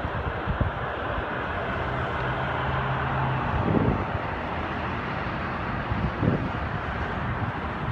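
Steady outdoor background roar, with a few low bumps of wind buffeting the microphone.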